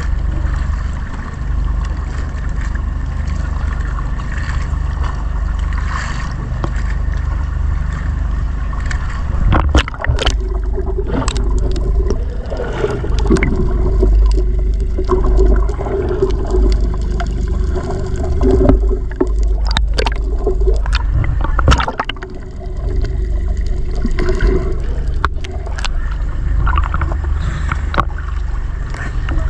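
Seawater sloshing and gurgling around a snorkeler's action camera as it goes under the surface and back up, sounding muffled while underwater, over a steady low rumble. A few sharp knocks come through in the middle stretch.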